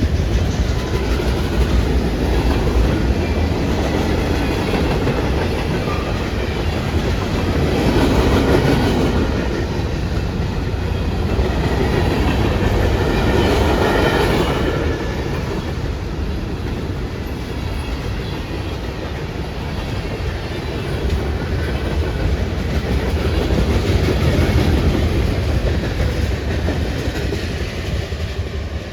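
Freight train rolling steadily past on the track, its cars rumbling over the rails.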